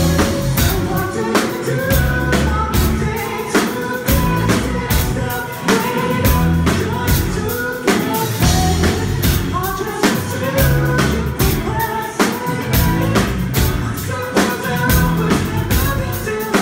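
Live band playing a song: drum kit keeping a steady beat under a male vocalist singing into a microphone.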